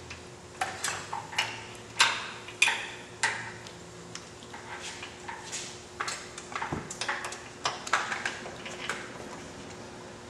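Sharp metallic clinks and ticks of steel bolts and a socket ratchet as motorcycle gas-tank mounting bolts are put back in, at irregular spacing, with a quicker run of ratchet clicks about seven seconds in.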